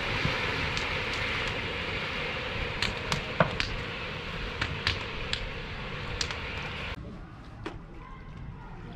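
Cooking over a wood fire: a steady hiss from the fire and the steaming pot, with scattered sharp clicks and knocks as a long metal ladle stirs the large pot. About seven seconds in the hiss drops away, leaving a quieter background with a few light clicks.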